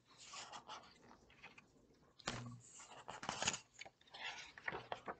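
Pages of a picture book being turned by hand: paper rustling and crinkling in several short swishes, the sharpest about two seconds in.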